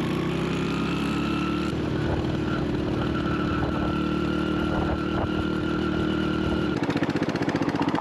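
Honda Win motorcycle's small single-cylinder four-stroke engine running under way at steady revs. Near the end the note drops and turns into a fast, distinct putter as the revs come down.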